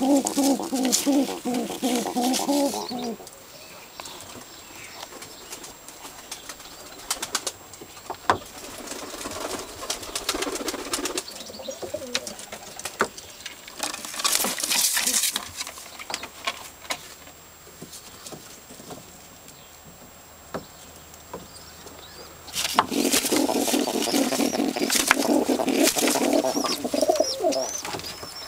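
Domestic tumbler pigeons cooing, a low rolling coo repeated over and over for the first few seconds and again through the last five seconds or so. In between come softer rustling and clicking of feathers and nest straw, with a brief flutter about halfway through.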